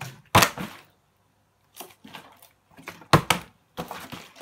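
Plastic water bottle being flipped and thudding down on a hard surface: a sharp knock about half a second in and two more close together a little after three seconds, with quieter handling rustle in between.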